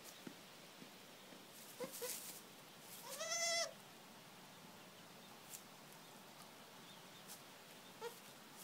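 Newborn Angora goat kid giving one high bleat, about half a second long, a few seconds in, with a couple of brief faint squeaks before and near the end.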